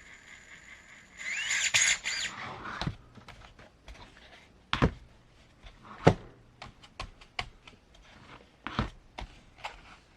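Furitek 2208 brushless outrunner motor and Python ESC in the RC crawler whining briefly about a second in as the throttle is blipped, the pitch rising and falling over a steady high tone. Then a series of sharp clicks and knocks from the car being handled, the loudest about six seconds in.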